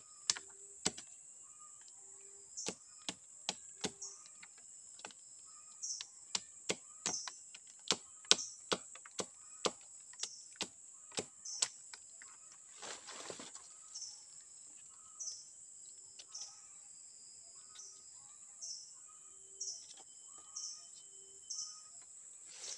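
Knife blade cutting and whittling a thin wooden pole: a run of sharp taps, one or two a second, thinning out after about twelve seconds, with a brief rustle around then. A steady high-pitched insect drone and a bird calling over and over run underneath.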